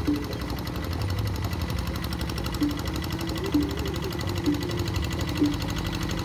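Kubota single-cylinder diesel engine of a hand tractor running steadily under load while ploughing a wet rice paddy, a fast even chugging. A short low tone recurs about once a second on top of it.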